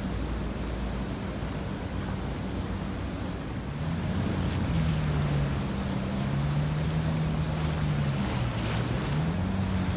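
A ferry's engines running, with water wash and wind on the microphone. About four seconds in the engine gets louder and its low hum shifts up and down in pitch as the throttle changes.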